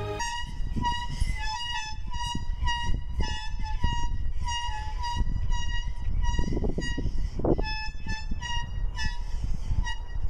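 Air horn sounded in quick short blasts, about two or three a second, one high note over a low noisy background.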